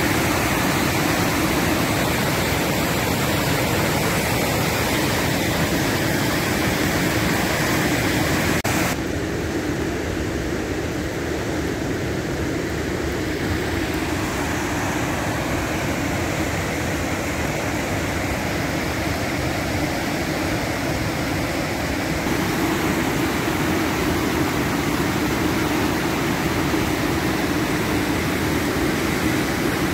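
Steady roar of Stamp River Falls' rushing white water in high winter flow. About nine seconds in the higher hiss drops away suddenly and the rush sounds duller.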